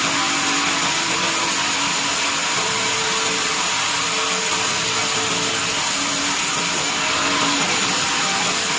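Band sawmill running, its blade cutting along a pine beam as the carriage feeds it through: a steady, even noise.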